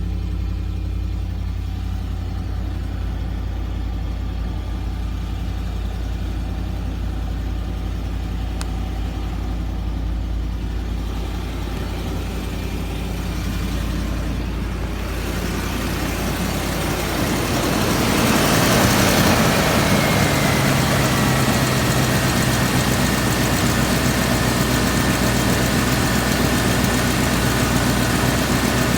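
Land Rover engine idling steadily. About halfway through, the sound grows louder and rougher, and a high, thin whine joins in, sliding slightly down in pitch and holding on. This is the weird noise from the newly replaced power steering pump.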